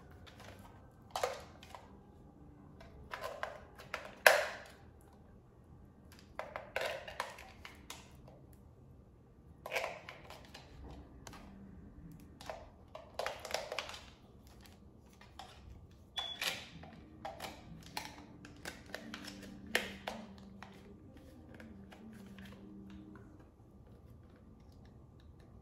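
Irregular clicks, taps and rattles of a toy helicopter's plastic remote controller being handled, coming in small clusters, the sharpest about four seconds in.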